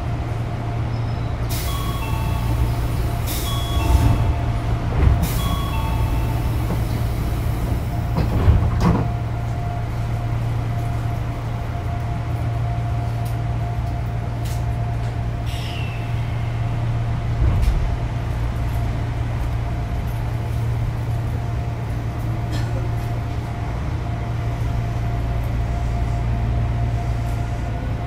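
Inside a stopped Odakyu 8000-series chopper-controlled electric train: the onboard equipment hums steadily, a two-tone door chime sounds three times in the first few seconds, then the doors close with a thump. Near the end a rising motor tone as the train starts to move off.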